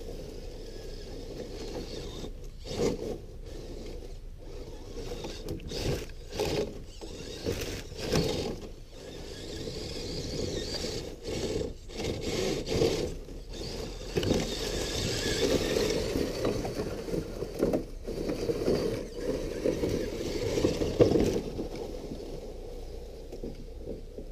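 Redcat Gen8 RC crawler truck driving through dry leaf litter and dead branches: irregular crunching, crackling and scraping of its tyres and chassis over leaves and sticks, busiest in the second half and fading near the end as it moves away.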